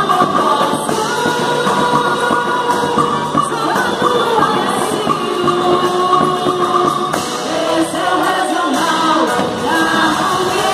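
Quadrilha junina song: singing over a band.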